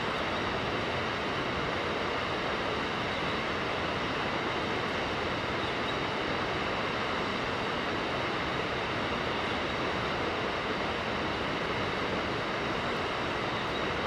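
Steady rushing of a mountain river: an even, unbroken water noise at a constant level.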